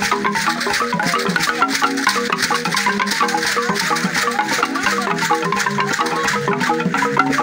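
Traditional dance music: a xylophone playing a quick repeating pattern of short wooden notes, with shaken rattles keeping a dense steady beat.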